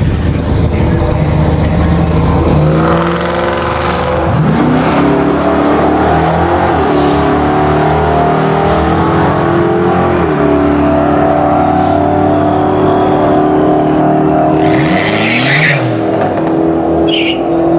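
Car engine running hard under acceleration, its pitch climbing and then dropping back a couple of times, with a short high-pitched squeal near the end.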